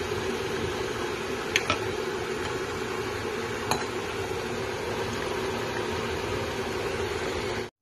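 Chicken pieces simmering in sauce in an enamel pot on the stove, a steady bubbling hiss, with a few light clicks, two close together about a second and a half in and one a couple of seconds later. The sound cuts off abruptly near the end.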